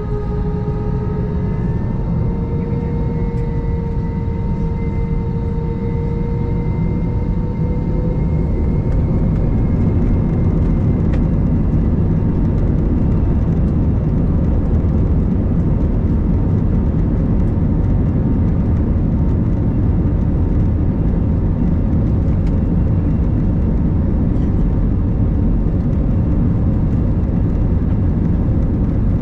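Airbus A321 jet engine and airflow noise heard inside the cabin: a steady low rumble with a faint whine that rises slightly in pitch over the first several seconds, then fades, and the rumble grows a little louder about eight seconds in.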